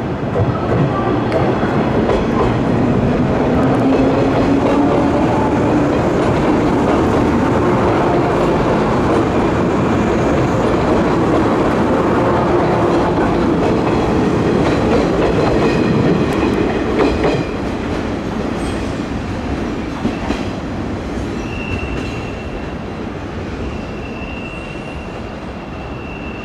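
A 103 series electric train running close by: its motors hum, rising in pitch, under a loud rumble of wheels clacking over rail joints. Near the end it is quieter, with a thin high-pitched wheel squeal.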